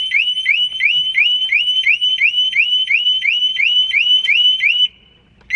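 Harley-Davidson Smart Siren 2 motorcycle security alarm sounding, set off by moving the bike: a loud, fast repeating rising whoop, about three a second, that stops about five seconds in, followed by one short chirp near the end.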